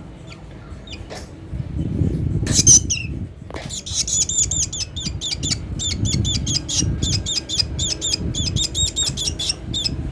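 A baby bird giving short, high, rapidly repeated begging calls, several a second, from about four seconds in. Before that come a few sharp knocks and rustles, the loudest about two and a half seconds in.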